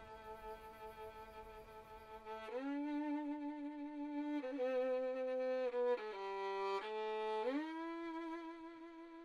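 Slow film-score music: a single bowed string instrument playing long held notes with vibrato, sliding up into each new note.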